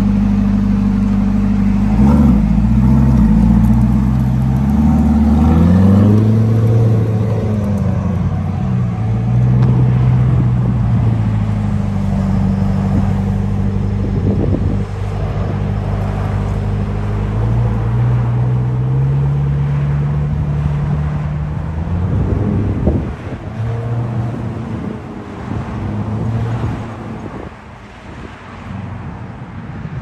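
2023 Chevrolet Corvette Stingray C8's 6.2-litre LT2 V8 exhaust note as the car pulls away. Its pitch rises and falls in the first several seconds, steadies as it cruises, then fades near the end as the car drives off.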